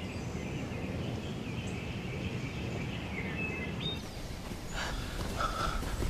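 Forest ambience: a steady low rumble with faint, thin bird calls. Near the end come short rustling sounds, as of someone moving through brush.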